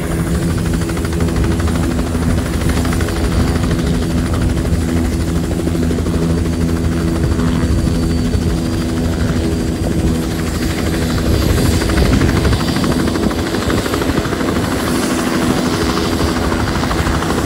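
Bell 505 helicopter, with its single Safran Arrius turboshaft engine and two-bladed main rotor, hovering close by and setting down on the pad. The rotor and turbine run loud and steady throughout.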